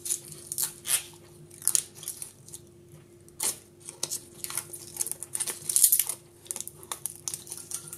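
Protective film being peeled off a CNC-cut 10 mm acrylic part: an irregular crackling and tearing, over a faint steady hum.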